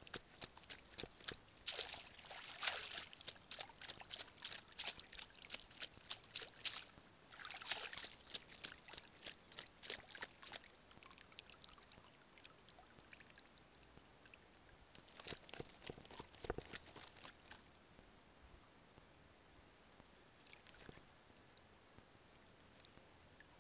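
Shallow seawater splashing and sloshing in quick runs of small splashes, as someone wades through it. The splashes are dense for about the first ten seconds, come back briefly around fifteen seconds in, and then it goes mostly quiet.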